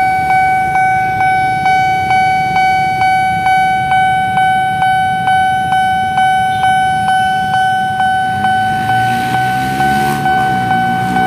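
Level crossing alarm with a Japanese-style electronic bell tone, dinging about twice a second, each ding fading before the next. It signals that the barriers are down for an approaching train. Near the end a lower hum whose pitch rises and falls joins in under the bell.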